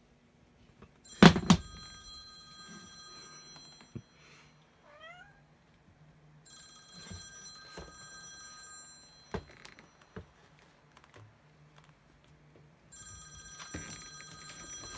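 Smartphone ringtone playing in bursts of high, bell-like tones a few seconds apart. About a second in, the phone drops from the bed onto a wooden floor with a loud thud as a cat knocks it off. Around five seconds in, the cat gives a short rising chirp.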